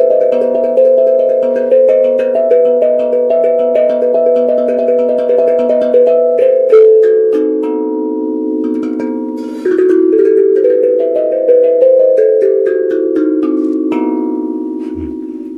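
Music on a tuned percussion instrument: quick runs of struck, ringing notes, giving way about halfway to slower, longer-ringing notes.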